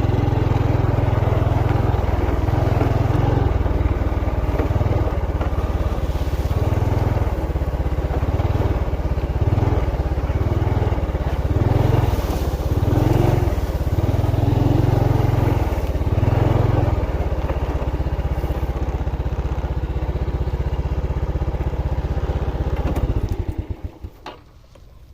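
Motorcycle running on the move, its engine and rumble rising and falling with the throttle. It dies away near the end as the bike comes to a stop.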